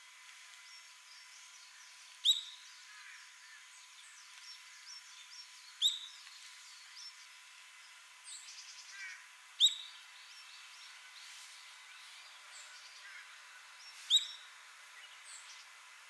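Ishigaki brown-eared bulbul (Hypsipetes amaurotis stejnegeri) giving four loud, short, sharp calls a few seconds apart, each dropping quickly in pitch. Fainter chirps of other birds and a faint steady high tone are heard between them.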